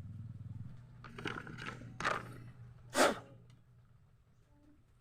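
Short puffs of air blown by mouth through a motorcycle carburetor's small jet holes to clear them, three in all, the loudest about three seconds in. A low steady hum fades out within the first second.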